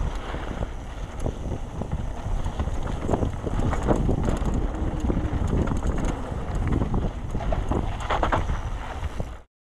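Wind buffeting a GoPro Session 5 action camera's microphone while a Trek Session 9.9 downhill mountain bike rattles and clatters over a rough trail at speed, with a steady low rumble. The sound cuts off suddenly near the end.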